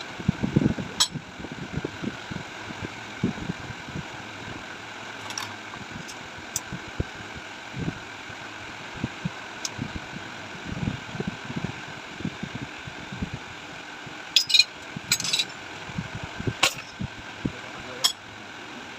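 Hand tools knocking and clinking on the metal parts of a motorcycle rear shock absorber being worked on, over a steady workshop hum, with a few sharp metallic clinks near the end.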